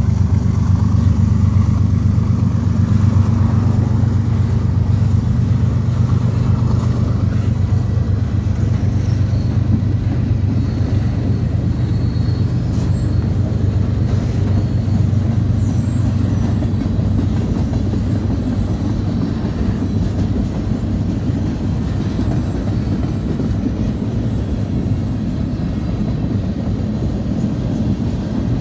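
CSX diesel freight train rolling past: the locomotive's low engine rumble eases over the first half as the freight cars follow with a steady rumble of wheels on rail. A faint high squeal comes in around the middle.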